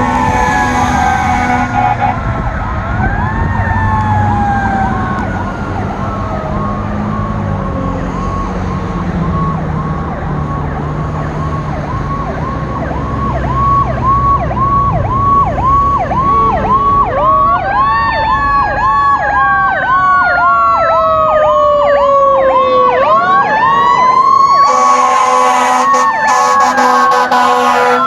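A 1982 Hahn fire engine running several sirens at once: an electronic wail sweeping slowly down in pitch and a rapid yelp, with a mechanical Federal Q2B siren winding up twice in the second half. Loud horn blasts sound near the end, over the low rumble of the truck's Detroit Diesel 8V71 engine.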